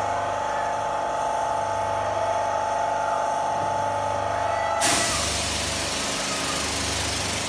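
Airless paint sprayer running with a steady motor whine; about five seconds in the spray gun is triggered and a loud, even hiss of high-pressure paint spray starts, with the pump's low hum continuing underneath.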